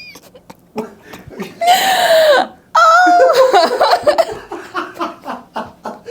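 A woman laughs loudly and shrilly: two long high-pitched bursts about a second and a half in, then breaking into rapid short giggling pulses. It is her reaction to a chiropractic neck adjustment. A few faint clicks come in the first second.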